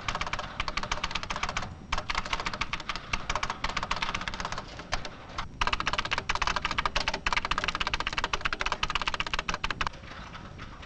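Fast typing on an early-1980s computer terminal keyboard: a dense run of key clicks with two brief pauses, stopping about ten seconds in.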